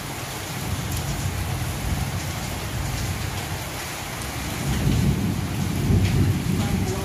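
Steady rain falling on corrugated tin roofs and leaves, a constant hiss. A low rumble swells under it in the second half.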